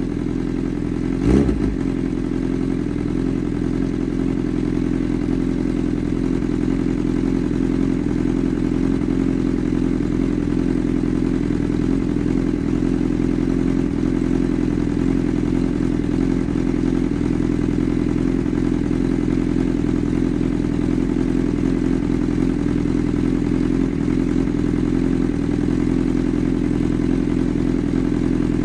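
Honda CB1000R's inline-four engine idling steadily through a Black Widow aftermarket exhaust, with one quick throttle blip about a second in.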